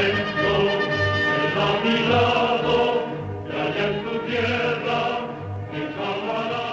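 Soundtrack music: a choir singing a marching-style song over a steady low drum beat, about two beats a second, fading out near the end.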